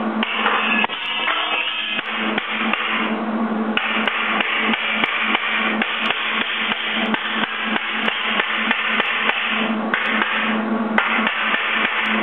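Background music with a fast, steady, knocking percussive beat over a held low note.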